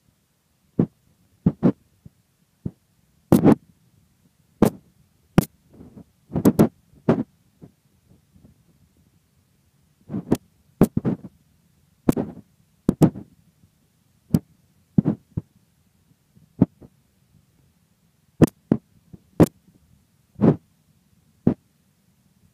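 Irregular dull thumps, one or two a second and some in quick pairs, over a faint low hum: knocks from a phone being carried at walking pace.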